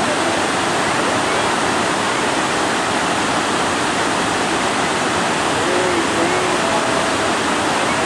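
Loud, steady rush of a wide, multi-tiered waterfall, water cascading over rock ledges into a pool.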